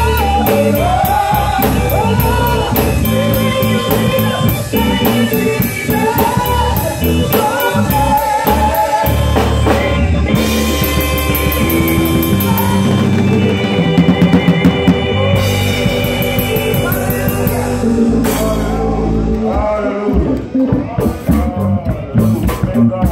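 Live gospel praise band playing: singing over an acoustic drum kit keeping a steady beat with cymbals and hi-hat. Near the end the playing breaks into separate loud hits.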